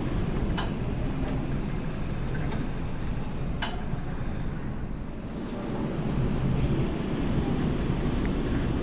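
Railway platform ambience: a steady low rumble with wind buffeting the microphone, and a couple of faint sharp clinks.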